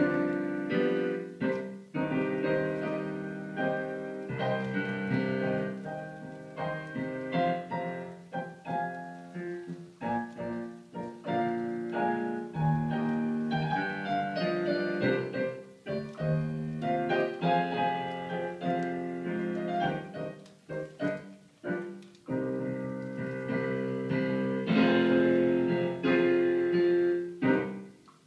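Solo piano music playing, a continuous flow of notes and chords.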